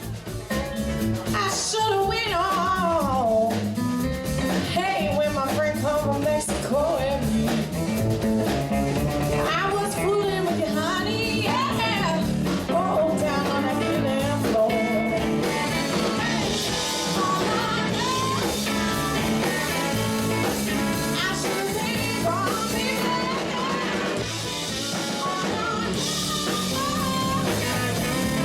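Rock-style music with a singing voice, guitar and drums.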